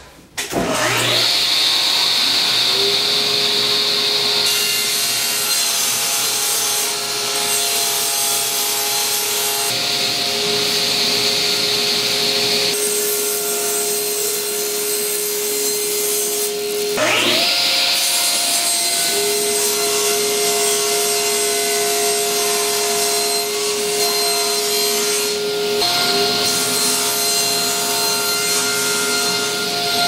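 Cabinet table saw running and crosscutting Baltic birch plywood on a crosscut sled. The motor whines up to speed just after the start and again about 17 seconds in, then runs steadily, with repeated stretches of higher hiss as the blade cuts through the wood.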